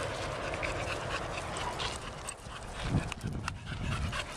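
A cattle-dog-type herding dog panting close to the microphone, with a few low rumbles around the middle.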